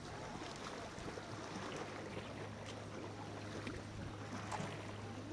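Quiet background ambience: a steady low hum under a faint hiss, with scattered faint short high chirps and ticks.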